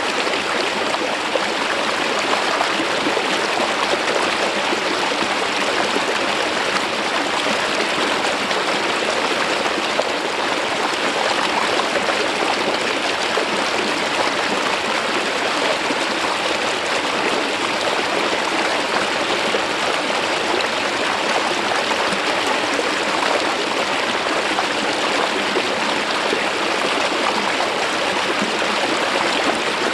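Mountain stream water flowing smoothly over a rock face, a steady, even rush and trickle.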